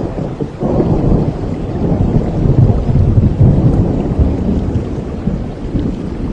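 Thunder rumbling over steady rain. The rumble builds about half a second in, is loudest midway, then eases off.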